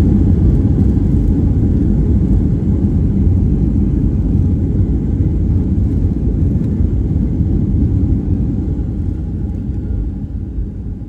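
Cabin noise of a jet airliner rolling down the runway after touchdown: a steady low rumble from the engines and the wheels on the runway. The rumble fades over the last few seconds as the aircraft slows.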